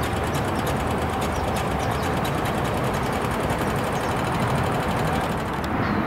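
Steady rumble of nearby freeway traffic, with a faint, fast, high ticking over it that stops near the end.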